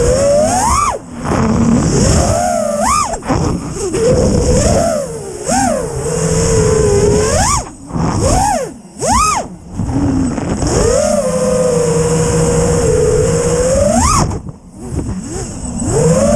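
FPV quadcopter's brushless motors whining, the pitch swooping up sharply and falling back as the throttle is punched and eased. The whine drops out briefly several times, around a second in, twice near the middle and again near the end, as the throttle is cut.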